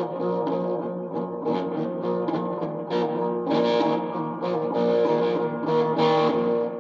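Guitar being played: a run of picked notes, several a second, over chords that ring on.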